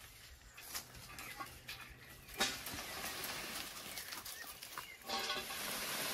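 Hazel bush leaves and branches rustling as they are shaken by hand, starting a couple of seconds in. Near the end comes a short pitched animal call.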